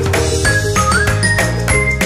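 Background music with a steady beat and short high melody notes.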